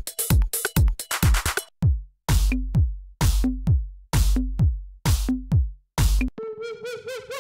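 Electronic dance drum-machine loops auditioned one after another: first a beat with busy hi-hats, then, about two seconds in, a beat with long booming kicks and claps. Near the end it switches to a synth loop playing a wobbling, warbling lead line.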